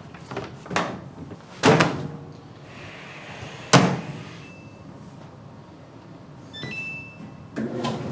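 Clothes dryer being loaded and started: a few knocks and thuds, the loudest a door shutting near the middle, two short control-panel beeps, then the drum starts running with a steady low hum near the end.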